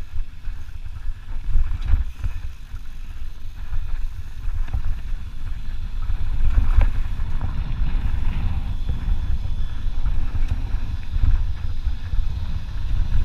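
Wind buffeting the action camera's microphone over the rumble and rattle of mountain-bike tyres rolling down a rocky singletrack, with a few sharper knocks from the bike over rocks.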